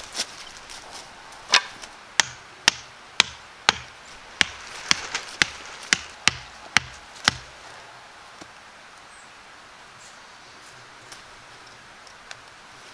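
About a dozen sharp hammer blows, roughly two a second, driving a stake into the ground; they stop about seven seconds in.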